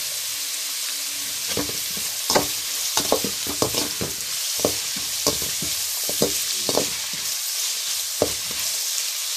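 Chopped onions, green chillies and curry leaves sizzling in hot oil in a metal pot, with a perforated steel spoon scraping and clacking against the pan as they are stirred. The stirring strokes come in a run from about a second and a half in to about seven seconds, and once more near the end.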